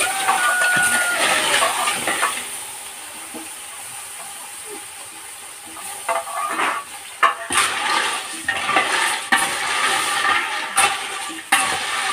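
Liquid poured from a plastic jug into a hot, steaming pan, hissing and sizzling. It is loud for the first couple of seconds, dies down, then grows loud again about six seconds in as more is poured, with sharp knocks and scrapes of a wooden spatula stirring in the pan.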